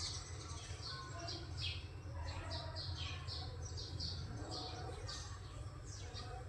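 Small birds chirping: a quick series of short, high, downward-sweeping chirps, a couple a second, over a steady low rumble.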